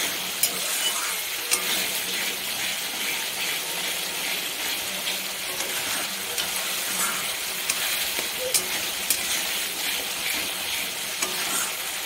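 Yogurt-and-spice masala sizzling as it fries down in oil in a kadai, the stage where the masala is nearly cooked dry. A spatula scrapes through it and taps against the pan now and then as it is stirred.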